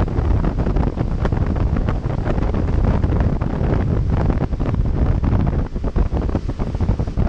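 Heavy wind buffeting the microphone of a camera on a motorboat under way, with the rush of the boat and its churning wake underneath. Wind gusts rise and fall throughout.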